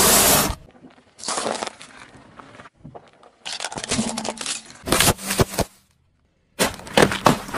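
A car tyre rolling over and crushing crunchy things (swirl cookies, a small plastic toy, sealed bags of chips), heard as several separate runs of crackling and snapping. Each run cuts off suddenly, with short silences between them.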